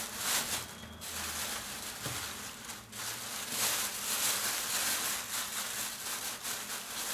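Clear plastic bag rustling and crinkling as hands move oranges around inside it, in stretches broken by short pauses about one and three seconds in.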